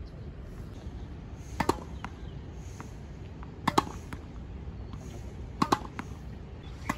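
Sharp knocks of a tennis ball on a racket and court, coming in close pairs four times, about every two seconds.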